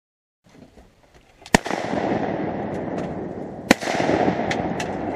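Two shotgun shots about two seconds apart, over a steady rushing noise, with a few fainter sharp cracks after the second shot.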